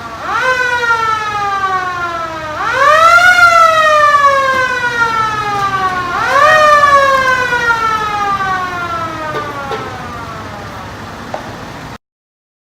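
Fire engine siren sounding in a test: three wails, each rising quickly to its peak and then falling slowly, the last dying away over about five seconds. The sound cuts off abruptly near the end.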